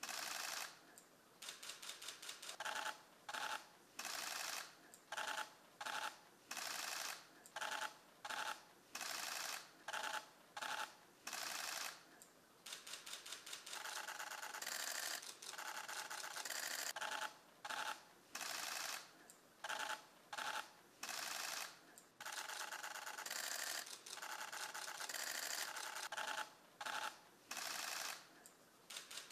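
Many press cameras' shutters firing in rapid bursts of overlapping clicks, with short gaps between bursts.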